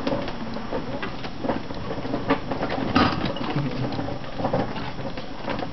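Hand-pulled rickshaw rolling over a paved lane: a steady rattle from the carriage and wheels, broken by irregular clicks and knocks.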